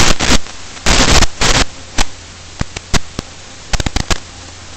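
Crackling radio static over a low steady hum from an analog FPV video link: a few longer bursts in the first second and a half, then scattered short clicks and pops. The link's signal is breaking up, with the drone lying on the ground in the grass.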